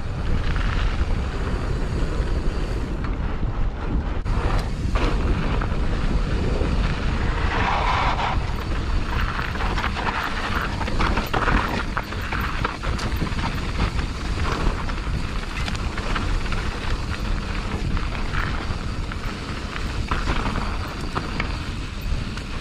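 Polygon Siskiu N7 mountain bike riding down a dirt trail: steady tyre noise on loose dirt and gravel under a heavy low wind rumble on the microphone, with occasional clicks and rattles from the bike.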